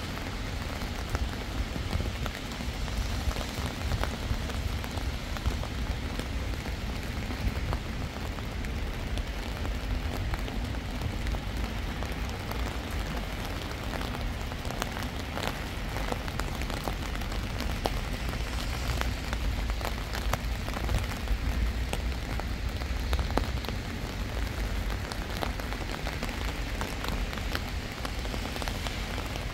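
Steady rain falling, with many close, crisp drop ticks over an even hiss and a steady low rumble underneath.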